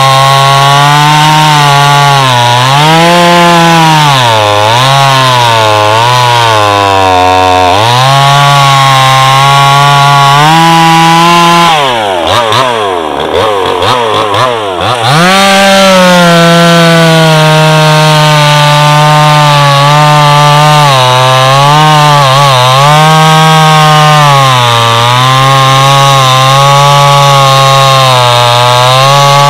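A 5200 (52cc-class) two-stroke gas chainsaw cutting through logs at full throttle, its engine pitch sagging and recovering as the chain bogs in the wood. About twelve seconds in the throttle eases off for roughly three seconds, the engine note falling and wavering between cuts, then it revs back up and goes into the next cut.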